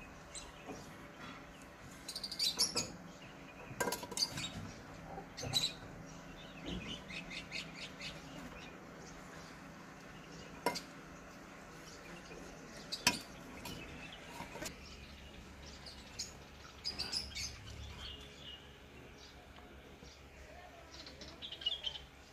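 Birds chirping on and off, with a few sharp taps and clinks from handling on a metal sheet.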